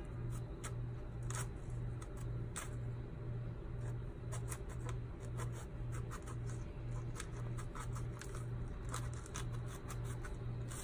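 A small kitchen knife cutting and scraping through pomegranate rind in a run of short, crisp cuts, over a steady low hum.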